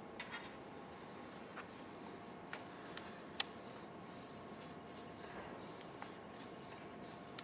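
Faint repeated rubbing strokes of a deburring stone drawn flat along a speed skate blade, with a few light clicks. This is the deburring step, cutting or folding the burr off the side of the freshly sharpened blade.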